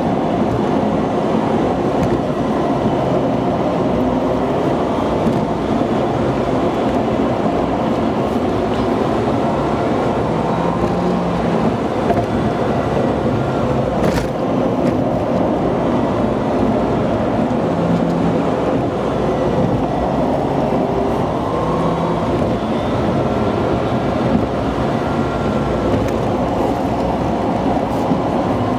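Car engine and tyre road noise heard from inside a moving car, the engine note rising and falling slightly. It is sped up to two to two-and-a-half times normal speed, so it is raised in pitch.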